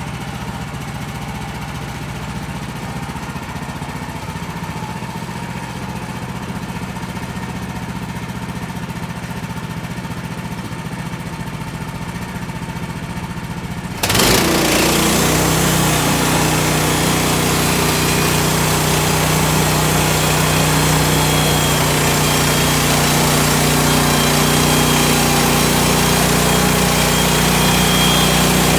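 Woodland Mills HM130 band sawmill's gas engine running at low speed, then about halfway through it suddenly gets louder as it is throttled up and the band saw blade runs, cutting through a spruce log steadily.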